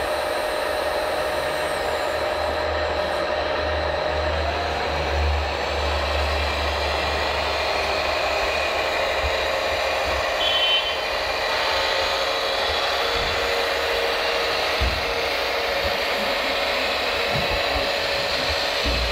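Radio-controlled scale Fendt 1050 model tractor driving, with a steady mechanical hum and whine under an even wash of noise; the low hum is stronger in the first half.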